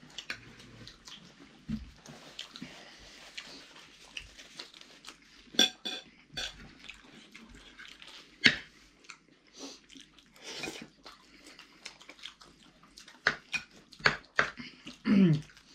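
People chewing and biting into a full English breakfast, with scattered short, sharp clicks.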